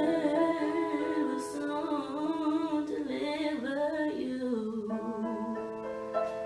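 A woman singing a slow line of long, wavering held notes over sustained instrumental chords. The voice stops about five seconds in, leaving the held chords.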